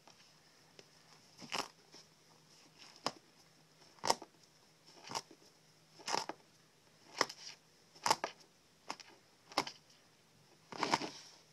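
A pheasant carcass being cleaned by hand: a series of short crackling, tearing sounds, roughly one a second.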